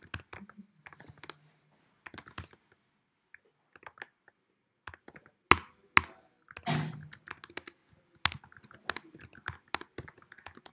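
Computer keyboard being typed on in uneven bursts of keystrokes with short pauses, a few single keys struck harder than the rest.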